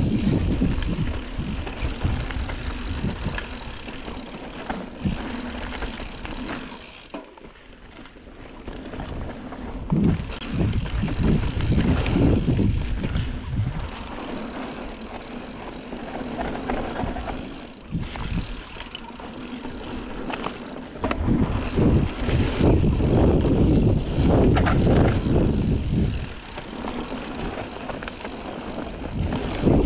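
Wind buffeting an action-camera microphone on a fast mountain-bike descent, with tyres rolling over a dirt trail and knocks and rattles from the bike over bumps. The noise falls away briefly about seven seconds in, then comes back loud in several surges.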